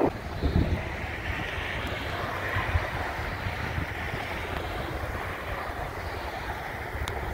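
Thunderstorm wind buffeting the microphone: a steady rushing rumble. Louder gusts of noise come in the first second, as a car goes by on the road.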